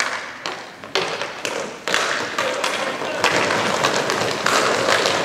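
Inline hockey play: a face-off, with sharp knocks of sticks and puck on the rink floor in the first two seconds, then a dense clatter of clicks and taps as players skate off with the puck.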